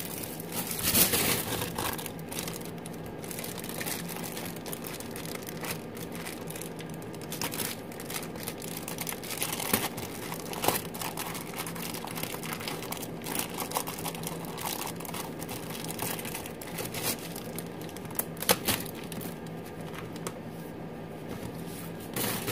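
Thin clear plastic packaging crinkling and rustling in irregular bursts as it is handled and pulled open.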